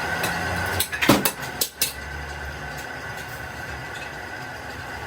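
A low steady hum, then a quick cluster of four or five sharp knocks about a second in, after which a quieter steady noise continues.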